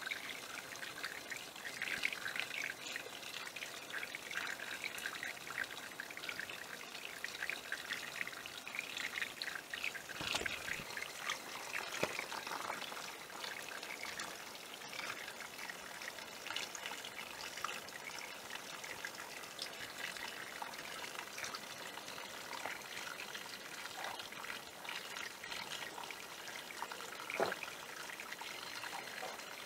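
Small stream of water trickling and splashing over rocks: a steady, gentle trickle.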